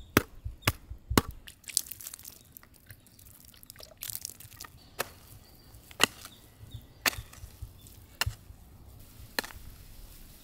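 Hoe blade chopping into a pile of clay soil, breaking up the clods: sharp strikes, a quick run of them at first, then about one a second.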